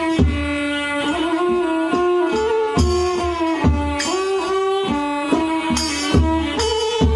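Kantrum ensemble music: a bowed tro fiddle plays a held melody that slides between notes, over low hand-drum beats about once or twice a second and the sharp strokes of small hand cymbals.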